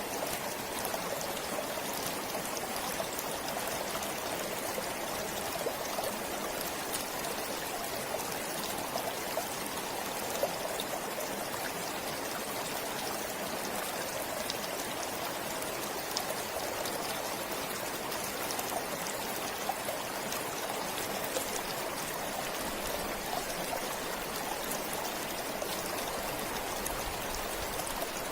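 A forest stream flowing steadily, water trickling and splashing over stones in an even, unbroken rush.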